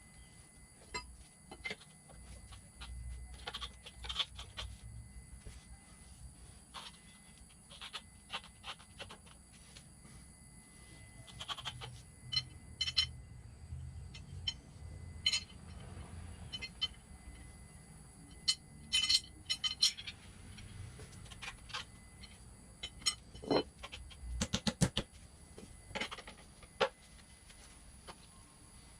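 Hand tire-changing tools worked against a motorcycle wheel: tire spoons and rim protectors levering the tire over its aluminum rim, giving irregular clicks, knocks and scrapes, with the loudest flurries of clicks near the middle and toward the end.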